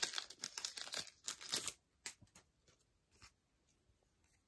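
Plastic wrapper of a baseball card pack being torn open and crinkled for about the first second and a half, followed by a few faint ticks and rustles as the cards are handled.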